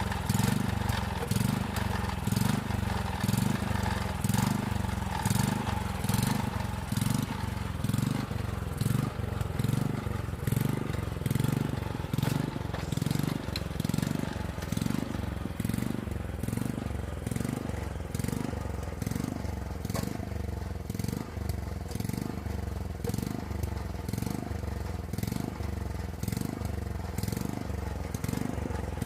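The small gasoline engine of a Daedong cultivator running after repair of a stuck intake valve, with a steady, regular pulsing in its sound.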